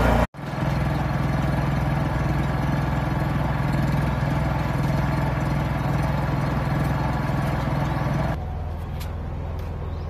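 A machine motor running with a steady, even hum. It cuts out for a moment just after the start, then gets quieter and duller about eight seconds in.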